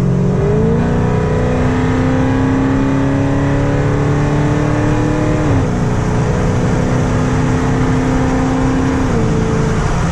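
Dodge Charger Scat Pack's 392 Hemi V8 pulling hard under acceleration, revs climbing. The pitch drops a step about five and a half seconds in at a gearshift, then holds and eases down again near the end.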